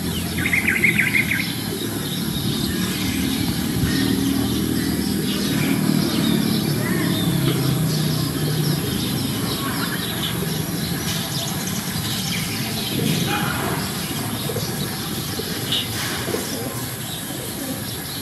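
Birds chirping, with a quick burst of high chirps about a second in and scattered short calls later, over a steady low rumble.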